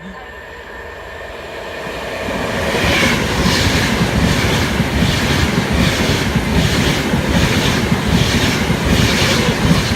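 Train passing at speed, its noise building over the first few seconds to a loud steady rush, with a rhythmic wheel clatter of about two beats a second.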